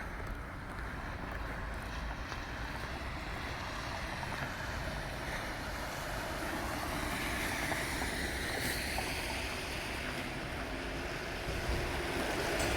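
Steady wind and traffic noise on a snowy city street, getting louder near the end as a vehicle comes closer.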